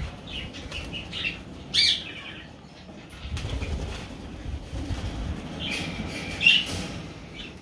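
Indian ringneck parakeet wings flapping as a bird flutters about the aviary wire and onto a hand, with two short, sharp parakeet squawks, one about two seconds in and one near the end.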